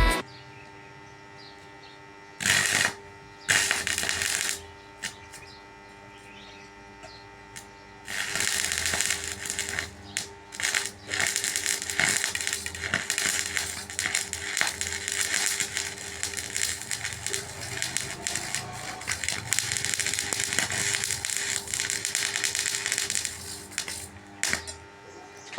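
Electric arc welding: two short arc strikes, then a long continuous weld run of about sixteen seconds with an irregular crackle and sizzle. A faint steady hum sits underneath.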